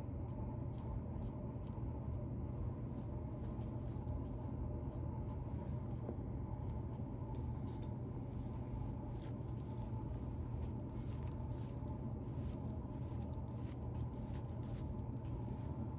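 Fingernails scratching through a beard to loosen dandruff: a run of dry, irregular crackling scratches over a steady low hum.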